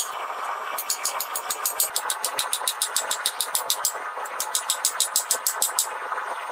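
Hammer blows on red-hot steel on an anvil: rapid, even strikes at about seven a second that begin just under a second in, break off briefly about four seconds in, and stop near the end.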